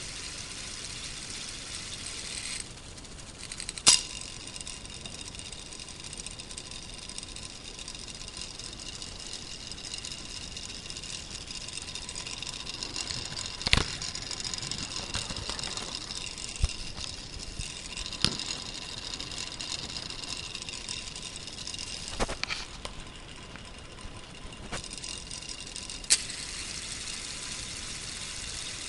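Small electric motor driving a K'nex plastic two-speed gearbox: a steady high gear whine, broken by a handful of sharp plastic clacks spread through it.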